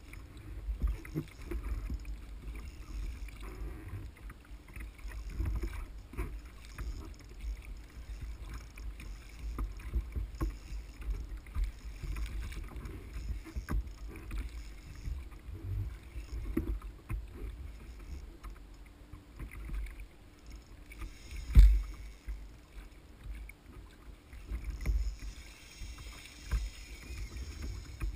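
Ocean water sloshing against a kayak hull, with a steady low rumble and scattered small knocks. One much louder knock comes about three-quarters of the way through.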